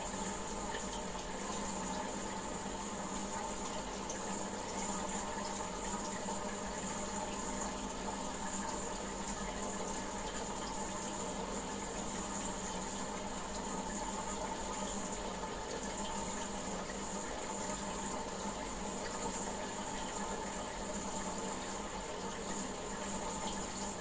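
Aquarium water running and splashing steadily without a break, with a steady low hum underneath.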